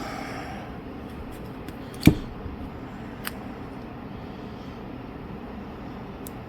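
Small sharp clicks from handling a phone part on the workbench while working its protective film off: one distinct click about two seconds in and a fainter tick a second later, over a steady room hiss.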